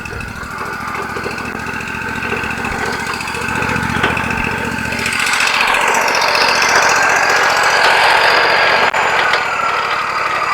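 Wood-Mizer LT40 hydraulic sawmill running: its engine drones with a hissing whine on top that grows louder over the first six seconds. Near the end a whine dips in pitch and rises again.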